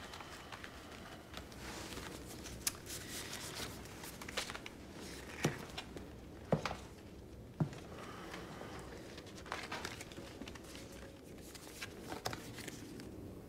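Paper rustling and crinkling as identity papers are handled and looked over, with scattered sharp ticks and taps, quiet throughout.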